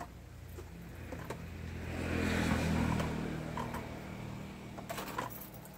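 A motor vehicle's engine humming and passing by, swelling to a peak about two to three seconds in and then fading, with a few light knocks near the end.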